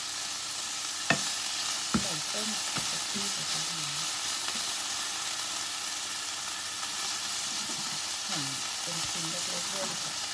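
Minced beef frying in a pan with a steady sizzle, and two sharp clicks about one and two seconds in.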